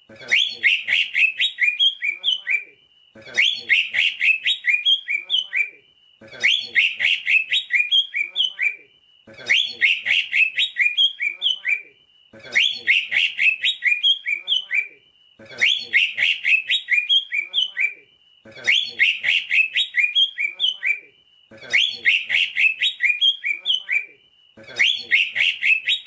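Male green leafbird (cucak ijo) singing: the same fast run of quick, high notes repeated over and over, each phrase about two and a half seconds long with a short pause before the next, about every three seconds.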